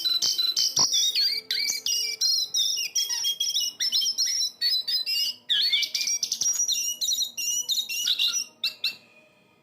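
Jongkangan coklat songbird singing a fast, unbroken stream of chirps and short whistled notes, stopping about nine seconds in.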